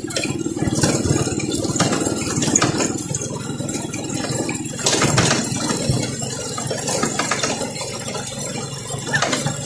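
Motorcycle engine running while riding over a rough gravel road, with rattling and scattered knocks from the jolting ride.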